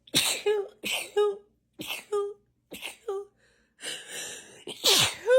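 A woman sneezing over and over in a fit: four quick sneezes about a second apart, each a sharp hiss followed by a short voiced 'choo'. Then comes a longer, louder sneeze near the end, its voice sliding up and back down in pitch.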